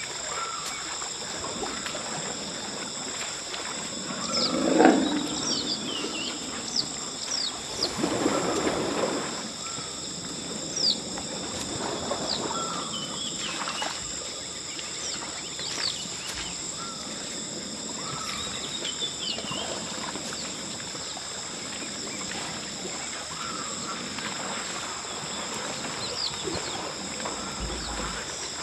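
African forest elephants calling: a loud, low call about four seconds in and another low call about eight seconds in. A steady high insect drone and short bird chirps run underneath.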